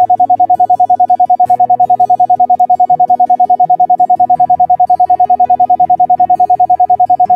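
Synthesized sound-therapy tone: a single steady electronic pitch pulsing on and off rapidly, about ten times a second, over soft background keyboard music with slowly changing held notes.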